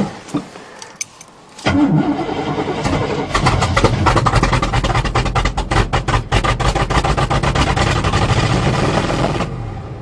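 A 1977 GMC truck's cold 400 small-block V8 being cranked on the starter, firing unevenly for several seconds without catching, then stopping near the end. It is a cold start on a carburettor that does not like the cold.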